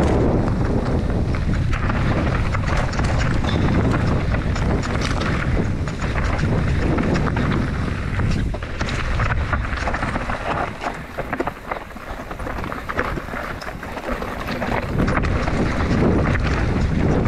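Enduro mountain bike ridden down a rocky trail: wind rushing over the microphone, with tyres on stone and the bike rattling and knocking over rough ground. About two-thirds of the way through, the wind drops for a few seconds and the clicks and knocks stand out more.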